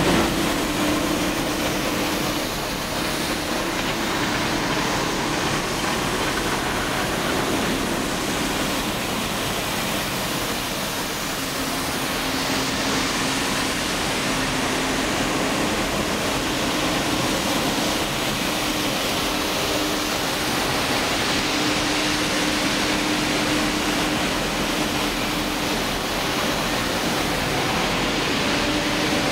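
Truck-mounted street sweepers working past at close range: a steady rushing hiss of brushes and suction under a low engine hum that shifts slightly in pitch.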